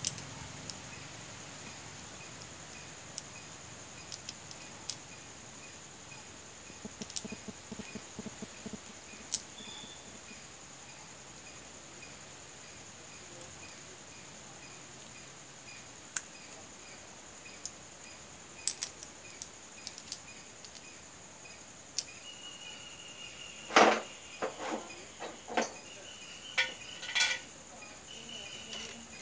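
Light metallic clicks of small motorcycle clutch parts being handled and fitted, with a run of louder, sharper clinks near the end as metal parts knock together. A faint steady high-pitched whine sits under it throughout.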